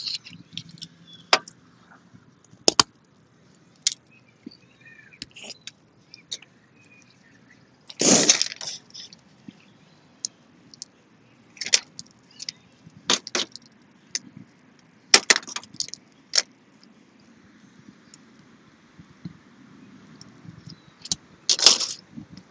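Boiled crawfish being cracked and peeled by gloved hands: scattered sharp snaps of shell, with two louder slurping eating sounds, one about eight seconds in and one near the end.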